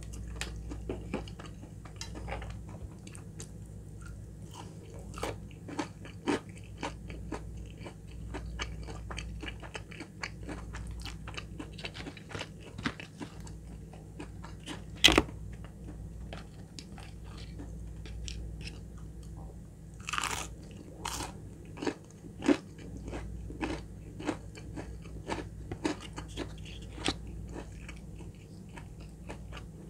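Close-up crunching and chewing of crispy-battered Popeyes fried chicken nuggets: irregular crackling bites, the loudest crunch about halfway through.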